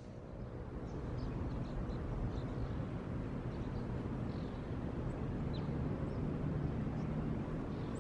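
Steady low outdoor background noise with faint, scattered short bird chirps.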